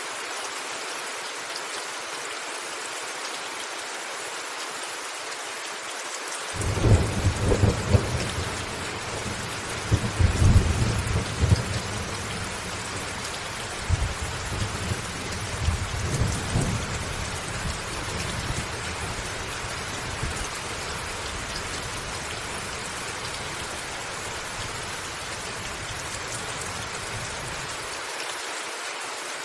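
Steady rain falling on a roof. About six seconds in, a thunderclap breaks into a long, low rumble with two loud peaks, then rolls on more softly and dies away near the end.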